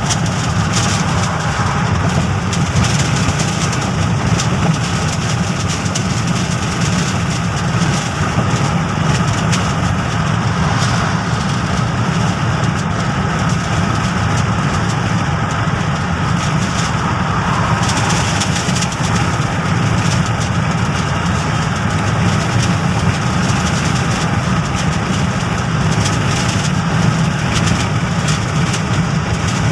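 Steady road and engine noise inside a car's cabin while driving at highway speed, a constant low rumble with tyre hiss and no distinct events.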